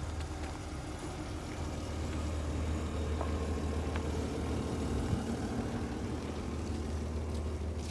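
New Holland hydraulic excavator's diesel engine running steadily with a low, even drone.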